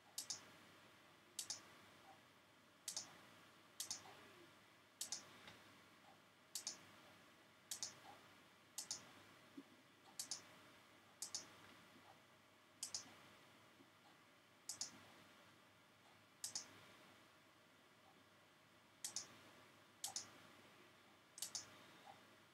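Computer mouse clicking: single sharp clicks about once a second, irregularly spaced, with a pause of a couple of seconds past the middle. Each click places a wire point in a circuit schematic program.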